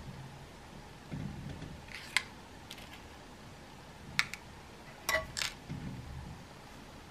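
Small lead airgun pellets clicking against the metal pan of a pocket digital scale as they are picked up and set down by hand: about five light, sharp clicks, the last two close together, over soft handling rustle.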